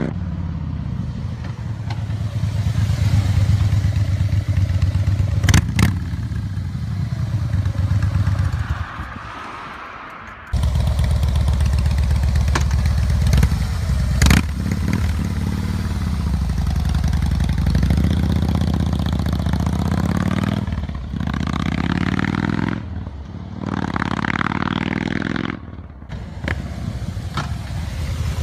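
Harley-Davidson Breakout motorcycles' V-twin engines running loud through their exhausts, a deep rumble that rises and falls with the throttle. It breaks off abruptly about ten seconds in and resumes, and there are sharp cracks about six and about fourteen seconds in.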